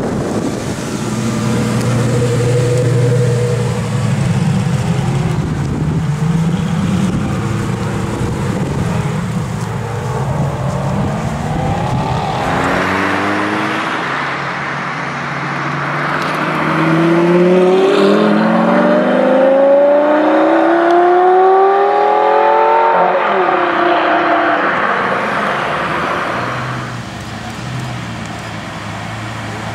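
Lamborghini Gallardo V10 exhaust. It runs at a low rumble as the car rolls by, then from a little under halfway through it accelerates hard with the engine note climbing steadily. The note drops sharply at an upshift about three-quarters of the way through, then falls back to a low steady rumble near the end.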